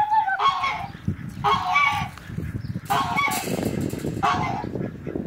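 Domestic geese honking: four loud honks, about one every second and a half. Footsteps rustle underneath in the second half.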